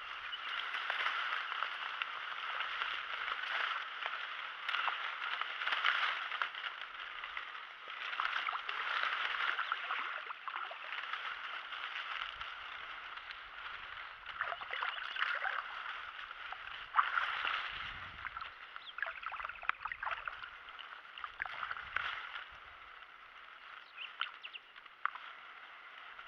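Dry cattail and reed stems rustling and crackling as they are pushed aside and brushed against, with uneven swells in loudness and a few dull knocks.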